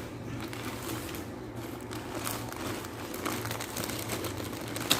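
Parcel packaging crinkling and rustling as it is handled and opened, with a sharp crackle just before the end.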